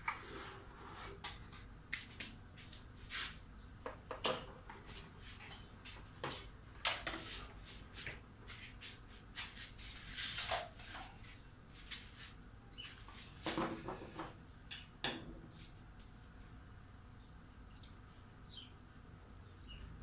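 Irregular clicks, taps and light knocks of hard plastic vacuum-cleaner housing parts being handled, shifted and set down on a workbench, with the vacuum's motor not running.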